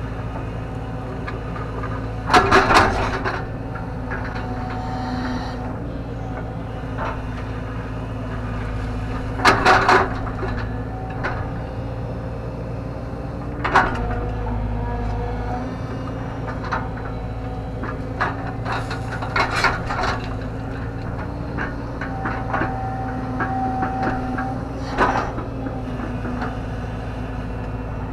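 JCB JS130 tracked excavator's diesel engine running steadily under hydraulic load while digging a trench, with sharp metallic clanks from the bucket and its coupling, loudest about two and a half and ten seconds in and again in a cluster near twenty seconds. The bucket coupling rattles and has some play.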